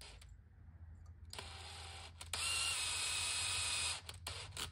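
Cordless drill spinning to twist a wire loop clamped in a bench vise: it runs slowly from about a second and a half in, speeds up to a steady whirr a second later, and stops about four seconds in, followed by a few light clicks.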